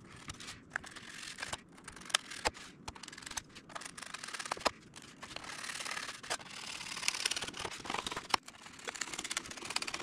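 Snap-off utility knife blade slicing through balsa sheeting: an uneven scratchy scraping with sharp little clicks and crackles as the blade cuts along the marked line to free a battery hatch. The cutting gets steadier and denser about halfway through.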